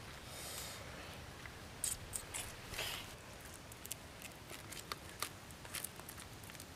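Faint handling sounds of bamboo skewers of grilled fish being lifted and moved: light clicks with a few short scratchy rustles, the loudest about two and three seconds in.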